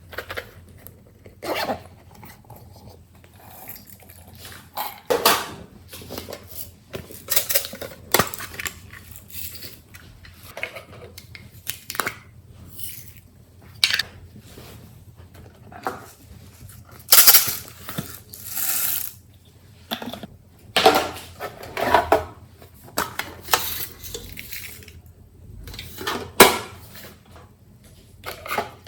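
Slime being mixed and handled: irregular wet squishes, clicks and crackles, one every second or so, with two louder, longer bursts about two-thirds of the way through.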